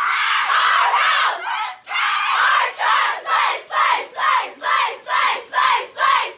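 A group of teenage girls screaming and shouting together, then breaking into a rhythmic chant of short shouts, a little over two a second.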